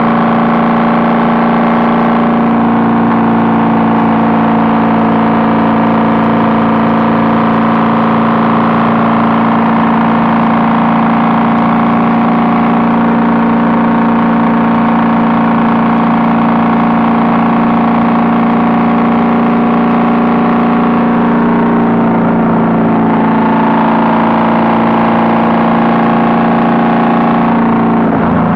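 Honda Valkyrie's flat-six engine running at a steady cruise through Cobra six-into-six exhaust pipes, loud and holding one even pitch, which drops right at the end.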